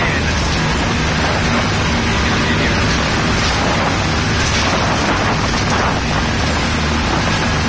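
Speedboat running at speed, heard from inside the helm cabin: a steady engine drone under a loud, even rushing of water and wind.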